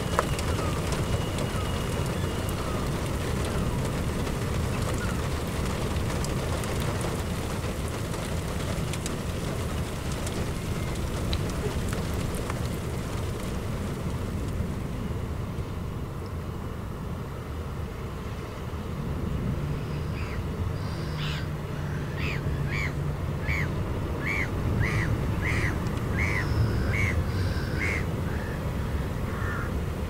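Steady low rumble of wind across the open shore. About twenty seconds in, a bird starts a run of short, sharp calls, evenly repeated about twice a second for some eight seconds.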